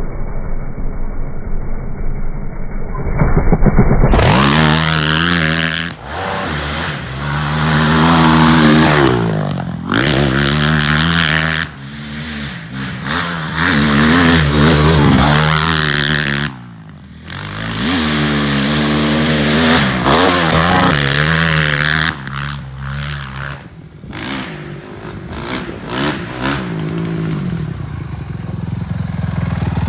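2005 Honda CRF450R single-cylinder four-stroke engine on a three-wheeler trike being ridden hard, revving up and backing off over and over as the throttle is opened and closed. The throttle shuts off briefly about two-thirds of the way through.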